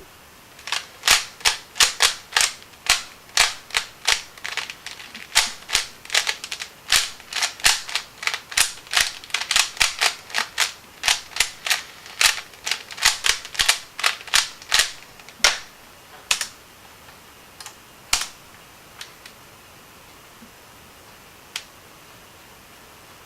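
Rubik's Cube being turned fast in the hands, its layers clacking about three times a second. The clacking stops about two-thirds of the way through, leaving a few scattered single clicks.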